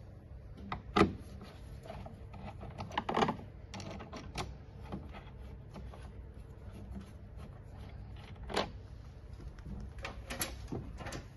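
Irregular light clicks and small knocks of a hand screwdriver working a Torx screw out of plastic truck door trim, with the trim being handled.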